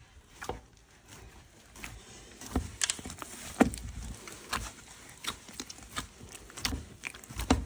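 Hands kneading soft, water-moistened lavash dough in a large metal basin: irregular slaps and soft thumps as the dough is pushed and folded, the loudest about three and a half seconds in.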